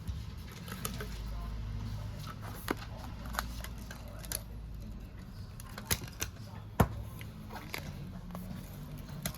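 Scattered sharp clicks and small taps of repair tools on a smartphone's body as it is worked on, over a steady low hum.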